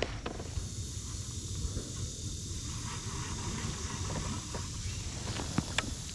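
Steady outdoor ambience: a high, even hiss of insects over a low rumble, with a few sharp clicks near the end.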